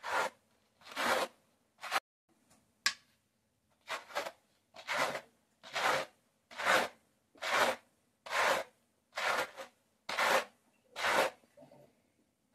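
Dog fur being carded between two small wooden-backed dog brushes: a regular series of scratchy brushing strokes, a little under one a second, with a pause about two seconds in.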